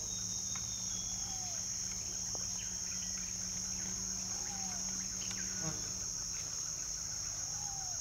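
Steady, high-pitched drone of a rainforest insect chorus. A faint call rising and falling in pitch repeats three times, about every three seconds.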